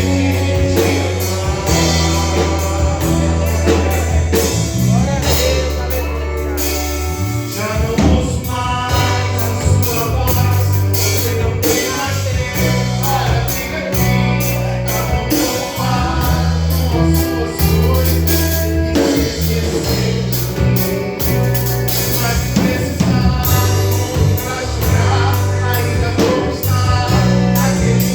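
A gospel band playing a song with singing over bass, guitar and drums, the bass notes held and changing every couple of seconds.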